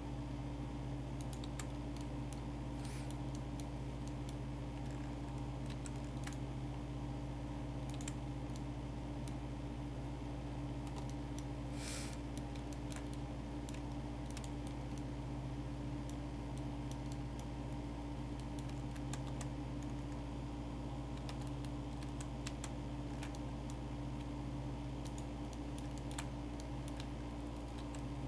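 Scattered computer keyboard and mouse clicks, irregular and spaced out, over a steady low hum.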